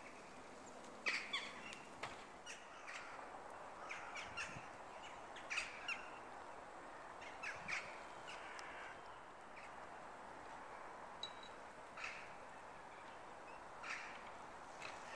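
Crows cawing outdoors in short, scattered calls, some in quick pairs, over a faint steady background hush.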